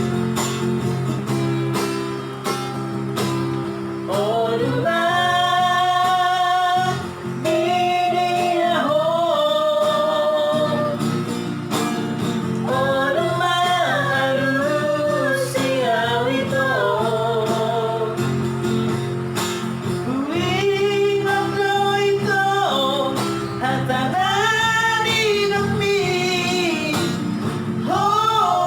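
Singing with guitar accompaniment. The first few seconds are accompaniment alone, then long sung phrases come in, with held, wavering notes and short breaks between them.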